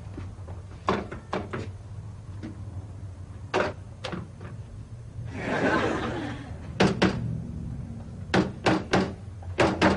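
Scattered knocks and thuds, then a fast run of sharp clicks near the end as the keys of a portable cassette tape recorder are pressed; a short burst of noise about halfway through.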